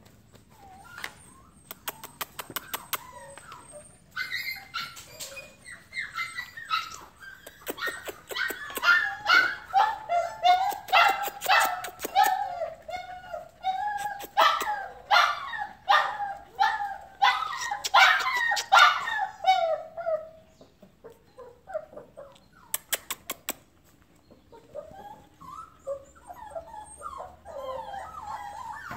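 Border Collie puppies yipping and barking in play, short high calls in quick succession, thickest through the middle and fainter near the end. A few quick runs of sharp clicks come near the start and again about two-thirds of the way through.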